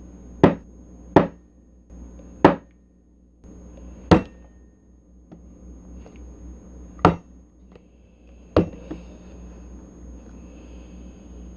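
Wooden mallet pounding Play-Doh on a tabletop: six sharp knocks, irregularly spaced, four of them in the first four seconds.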